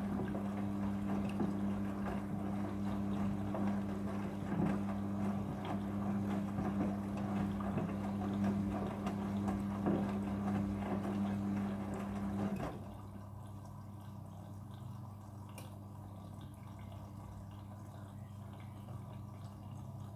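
Midea front-loading washing machine mid-cycle: a steady electric hum from a pump or water valve over rushing water. The hum and rush cut off suddenly about two-thirds of the way through, leaving faint trickling and dripping water inside the machine.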